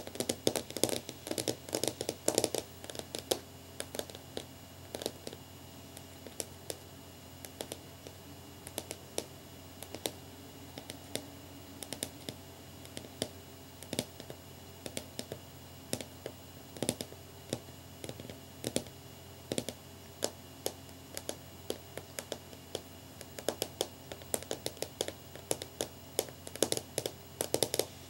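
Long fingernails tapping on a clear, hard flat pane: quick flurries of clicky taps in the first few seconds and again near the end, with slower, scattered taps in between.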